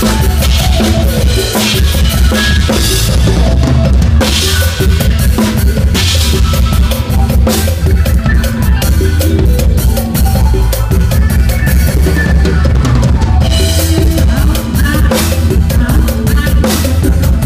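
Drum kit played live in a mor lam sing band, kick drum and snare driving the beat with cymbals, loud and close, over the rest of the band's bass and instruments.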